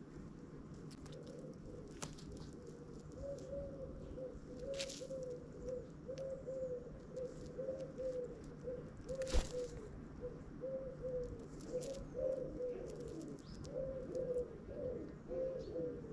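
Common wood pigeon cooing: a long series of soft, low coos, one after another, starting about a second in. A few sharp taps sound over it, the loudest about halfway through.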